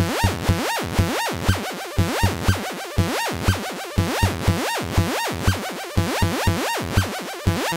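Eurorack synthesizer patch: an SDS Digital VCO whose pitch follows a CV loop recorded from a knob on the RIT_M module, swooping up and down in a repeating, clock-synced pattern, with low thumps about twice a second.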